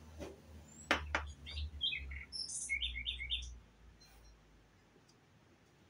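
Small birds chirping in short, repeated high notes, with two sharp clicks about a second in.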